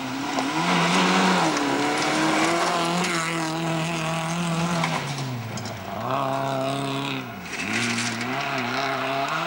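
Hatchback rally car's engine revving hard and held high as it passes. Its pitch drops and climbs again twice, about six and seven and a half seconds in.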